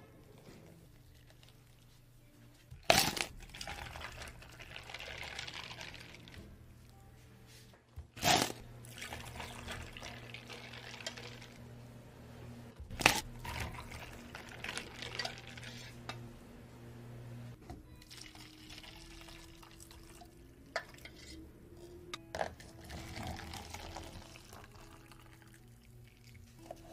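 Milk and milk tea poured from a plastic pitcher into plastic cups of ice, in several separate pours. Between the pours come a few sharp knocks against the steel counter.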